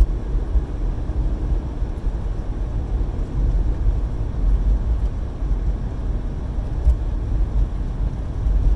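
Steady low rumble of a car being driven, heard from inside the cabin: engine and tyre noise.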